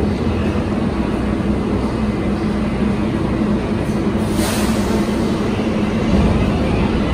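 New York City Subway 7 train (R188 cars) at an underground platform, a steady loud rumble with a brief hiss about four seconds in.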